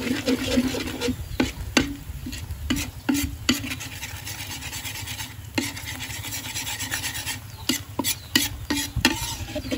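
Metal spatula scraping and clinking against a large metal wok in irregular strokes while palm sugar, garlic, lemongrass and chilli are stirred in hot oil, with a light sizzle underneath.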